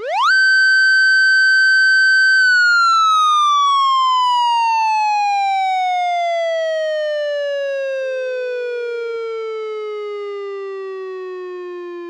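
Police motorcycle siren giving a single wail: it sweeps up fast to a high pitch, holds it steady for about two seconds, then slowly falls in pitch and fades.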